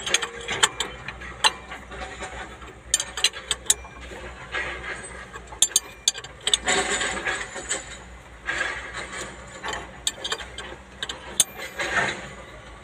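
Metal spanner clicking and scraping on the fuel injection pump drive gear nut as it is tightened: irregular sharp clinks with short bursts of grinding between them.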